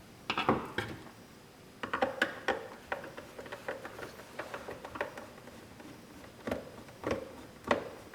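Phillips screwdriver turning a screw out of the front bracket of a vinyl cutter: irregular small clicks and scrapes of the tip in the screw head, with three louder clicks near the end.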